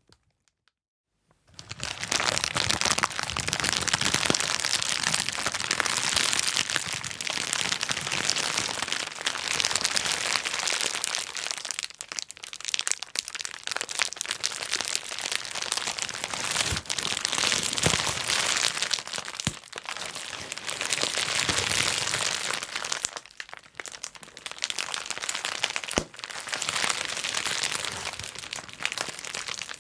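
Bubble wrap being popped and crushed: a dense, continuous run of crackling pops with sharper single pops standing out, starting after a brief silence.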